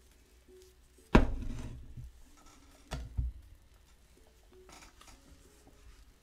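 Tea things being handled on a hard surface: one sharp, loud knock about a second in that dies away over about a second, then two quieter knocks in quick succession near the middle.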